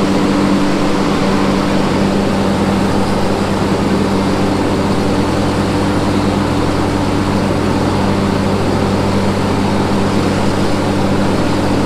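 John Deere 125 riding lawn mower's engine running at a steady speed, with an even drone that does not rise or fall.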